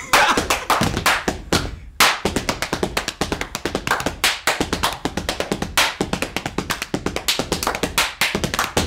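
Step team performing body percussion: fast, rhythmic hand claps, chest slaps and foot stomps in tight patterns.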